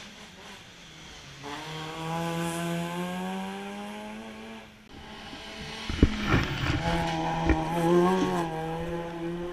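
Hillclimb race car engine accelerating hard, its pitch climbing steadily, then dipping briefly at a gear change and pulling again at high revs. A burst of sharp cracks comes a little past halfway, the loudest moment.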